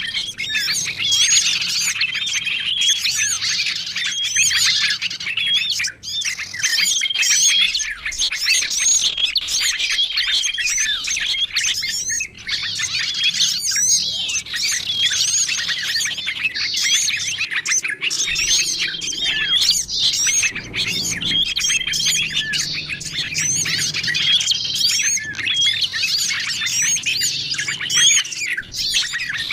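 Dense, continuous chorus of many small songbirds chirping and twittering over one another, with short whistled notes repeated throughout: a bird-lure (pikat) recording mixing the calls of several small bird species to draw wild birds in.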